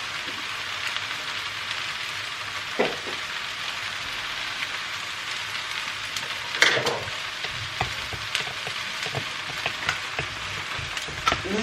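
Chow mein noodles and sauce sizzling steadily in a pan on high heat, with a few short knocks from a stirring utensil, the clearest about three and seven seconds in.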